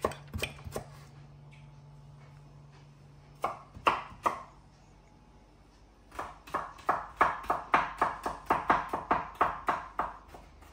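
Kitchen knife mincing garlic on a bamboo cutting board: a quick, even run of chopping strokes, about four to five a second, that starts about six seconds in. Before it come a few light clicks and three sharp knocks.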